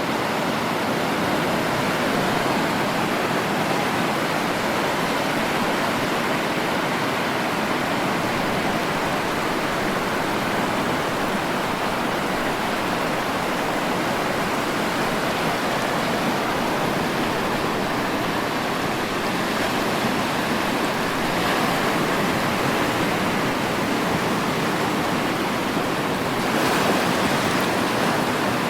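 Sea surf: a steady rush of waves breaking and washing in, with a brief, louder, hissier wave break near the end.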